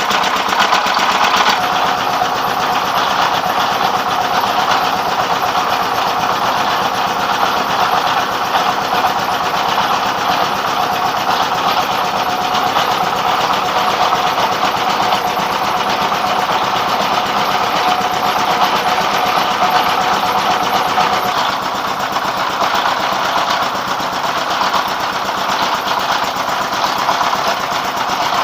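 Rice mill driven by a 24 hp dompeng single-cylinder diesel engine, running steadily under load as grain goes through the final stage that turns it into rice.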